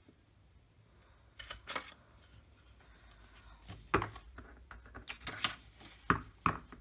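A Crop-a-Dile hole punch clicking twice as it punches through a paper page, then a run of sharp taps and light knocks from about four seconds in as a stack of paper pages is handled and squared on a cutting mat.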